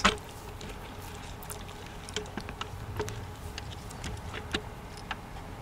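Faint, scattered clicks and light knocks from a plastic upper intake manifold on a Mazda 6 3.0 V6 being rocked by hand to work it loose after its bolts are out, over a low steady background rumble.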